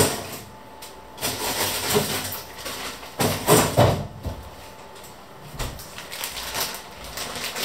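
Rummaging at an open fridge: irregular rustling and knocking as things are handled and a plastic-wrapped item is taken out, in three short bouts.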